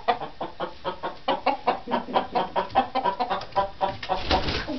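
Chickens clucking, a quick run of short clucks about five a second. Near the end there is a brief flutter of wings as a bird hops off the roost.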